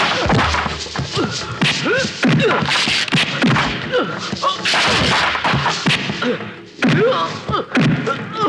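Movie fight sound effects: punches and body blows landing in several quick flurries, with short pained cries and grunts between them.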